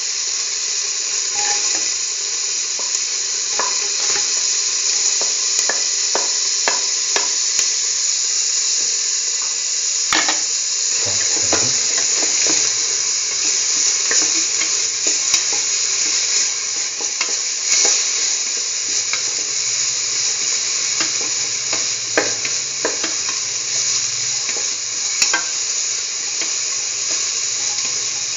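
Chopped onion sizzling in hot oil in a pan, a steady hiss, with a spatula scraping and knocking against the pan in scattered short clicks as the onion is stirred.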